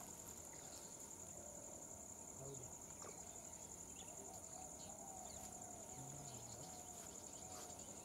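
Faint, steady high-pitched drone of insects.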